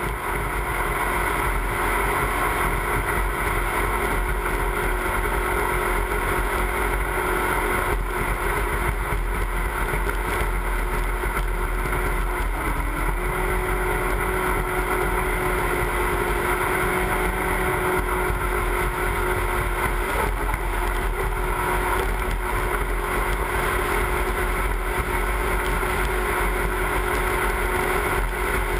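Race jet boat's engine running hard at speed, a steady, loud note over the rush of water; the engine note dips briefly twice partway through.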